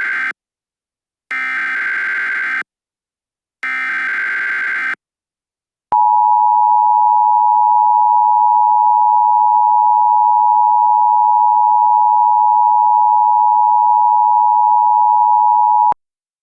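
Emergency Alert System activation tones. The tail of one SAME header data burst is followed by two more bursts of buzzy digital data, each about a second and a half long. About a second later comes the two-tone EAS attention signal, a steady dual tone held for about ten seconds that cuts off sharply.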